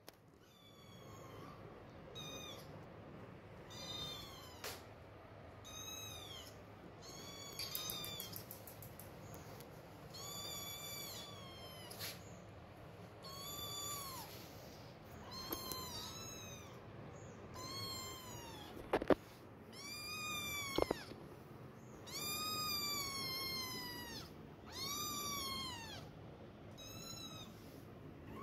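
Kittens mewing over and over, high, arching calls about one every second or two, some drawn out longer near the end, as they complain at being kept from nursing. Two sharp knocks come about two-thirds of the way through.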